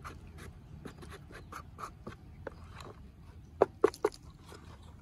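Hands brushing and scraping dry dirt off a mud-caked portable transistor radio's plastic case and grille: a run of short, scratchy rubbing strokes, with three sharper clicks about three and a half to four seconds in.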